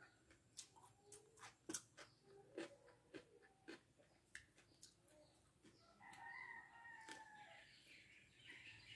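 Faint clicks and crackles of a boiled quail egg's shell being cracked and peeled by hand. Around six seconds in, a single pitched bird call, a little over a second long.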